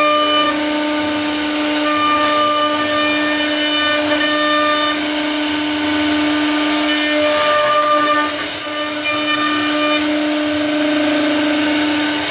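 CNC router spindle running at a steady high pitch while its bit cuts a wooden bed panel, with a hiss of cutting underneath; the sound dips and wavers briefly about eight seconds in.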